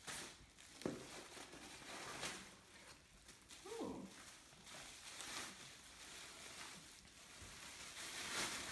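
Faint rustling and crinkling of plastic wrapping as wooden sofa legs are pulled out of their bags, with a few soft handling knocks.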